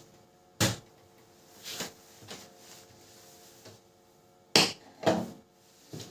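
Sharp clicks and knocks of laser-printer parts being handled and fitted back together, about six at irregular intervals, the loudest about half a second in and twice more near four and a half to five seconds in, over a faint steady hum.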